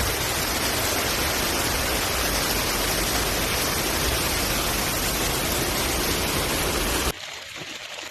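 Steady, loud rush of floodwater. It cuts off suddenly about seven seconds in, leaving a much quieter background.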